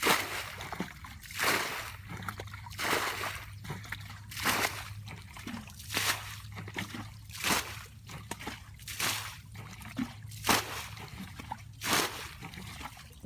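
Water splashing and sloshing in a steady rhythm, about one splash every second and a half, over a faint steady low hum.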